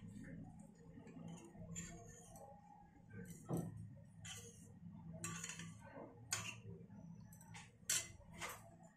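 Steel spoon stirring curd in a ceramic bowl, clinking and scraping against the bowl at irregular moments, with the sharpest knocks about three and a half seconds in and near the end.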